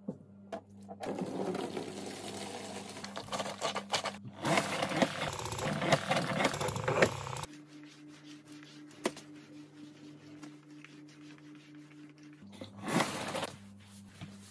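Spin mop cleaning sounds. A louder, noisy stretch lasts about seven seconds, then it turns quieter as the mop head is pushed over a laminate floor, with scattered light knocks and a short louder scuff near the end.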